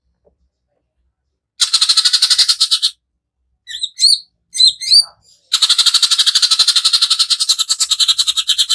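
Greater green leafbird (cucak ijo) singing its harsh rapid-fire 'tembakan' song. A fast buzzing trill lasts about a second and a half, a few short whistled notes follow, then a longer rapid trill starts about five and a half seconds in.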